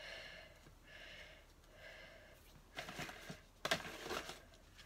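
A set of coasters handled in the hands, clicking and clattering against each other in a short cluster about three to four seconds in.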